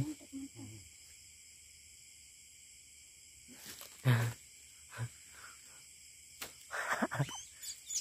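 Steady faint high trill of night insects, broken by a few short sounds: one a little past the middle, a click at about six and a half seconds, and a cluster near the end, as a palm frond is grabbed at.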